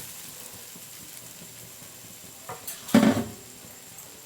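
Grated coconut frying lightly in a little oil in a kadai with a faint sizzle, being stirred to roast out its moisture. A spatula knocks and scrapes against the pan, a short knock about two and a half seconds in and a louder one just after.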